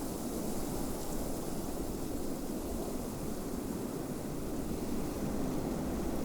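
Steady snowstorm wind: an even, low rushing noise with a faint high hiss above it.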